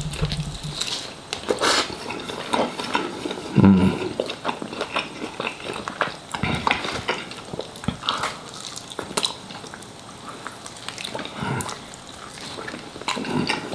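Close-miked eating: biting and chewing chicken wings, with wet mouth noises, lip smacks and small crackling clicks scattered through.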